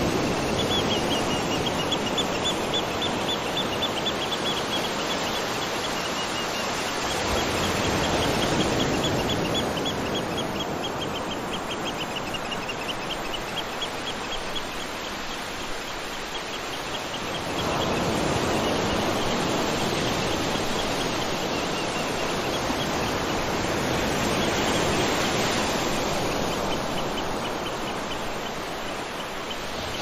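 Steady rush of water, louder from about seven seconds and again from about eighteen seconds. Over it, an animal's high, rapid pulsing call runs through the first half and returns near the end.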